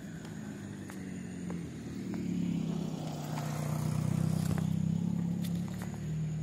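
A motor vehicle's engine running and drawing nearer, its hum growing louder to a peak in the middle, then easing slightly, with a few faint ticks over it.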